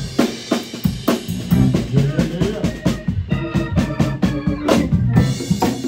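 Live band playing, the drum kit to the fore with kick, snare and cymbal hits in a steady beat, and electric bass and guitar notes over it.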